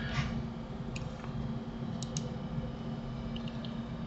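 A few faint clicks at a computer desk, two about a second in and two more about two seconds in, with lighter ticks near the end, over a steady low hum.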